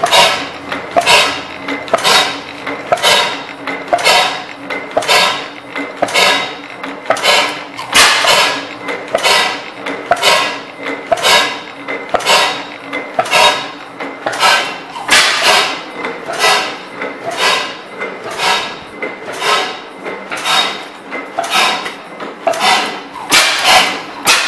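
10 HP Schleicher Schumm slide-valve gas engine running at speed on propane, with a steady metallic clatter of sharp clicks about twice a second.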